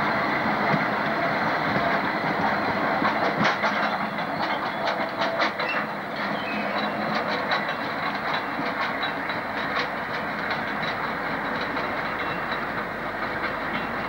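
A train of loaded coal hopper wagons rolling past, a steady rumble with rapid clicks of wheels over rail joints about three to seven seconds in. The sound then eases as the last wagons go by.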